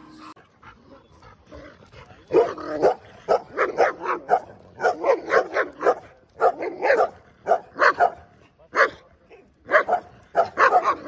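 German Shepherd barking repeatedly in quick runs of barks, starting about two seconds in.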